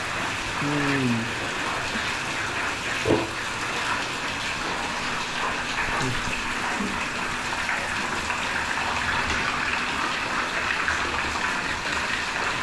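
Heavy rain falling steadily, a dense even hiss, with one sharp knock about three seconds in.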